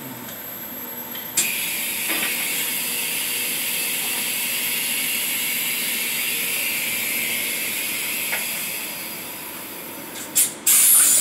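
Steady hiss of air from the roll-to-roll printer's unwinder, which starts suddenly with a click as the web tension is switched on, then fades. Two short loud bursts of noise near the end.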